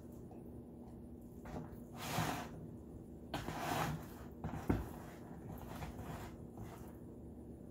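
Hands working a raw turkey in a disposable aluminium foil roasting pan: the foil rustles and crinkles in two short bursts, about two seconds in and again around three and a half seconds, followed by a soft knock.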